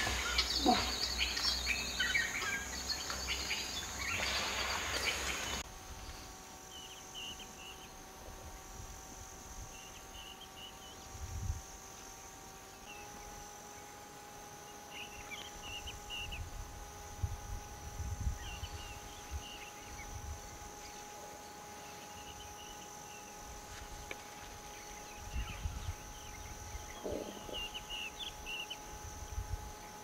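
A hippo's grunting call dies away in the first five seconds or so. Then comes a steady drone of insects in savanna grass, with a short high chirp every couple of seconds and an occasional low thump.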